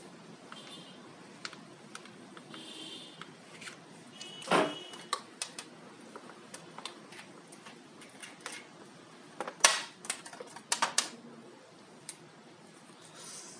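Scattered clicks, taps and knocks of the parts and case of a rotary drill and grinder kit being handled and fitted together, with one sharper knock about four and a half seconds in and a quick cluster of knocks around ten seconds in.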